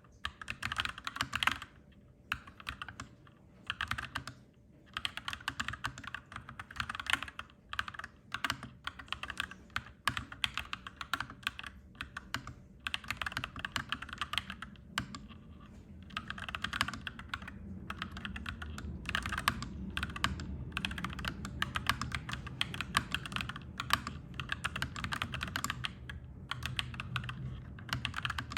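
Clacky mechanical keyboard being typed on in quick runs of keystrokes, broken by short pauses. A low rumble builds underneath from about halfway through.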